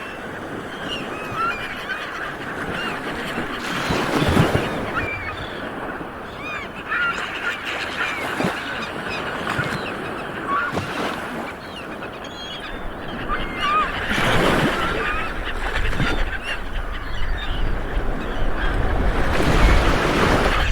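Light waves washing onto a beach, swelling about four seconds in, again around fourteen seconds and near the end, under many short bird calls throughout.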